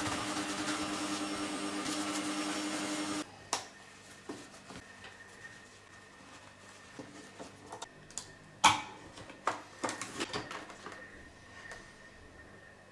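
A small electric motor tool running at a steady pitch, switched off abruptly about three seconds in. Scattered light clicks and knocks of parts being handled follow, with one sharper click near the middle.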